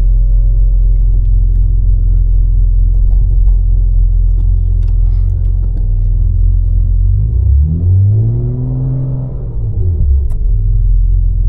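BMW G80 M3 Competition's twin-turbo straight-six running with a steady low rumble while driving, its revs rising and falling once about eight seconds in.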